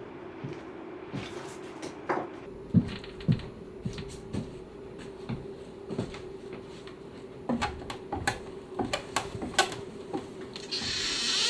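Hand-tool work on a wooden dining chair: scattered sharp clicks and knocks, coming thicker in the second half, over a steady low hum, with a short hiss near the end.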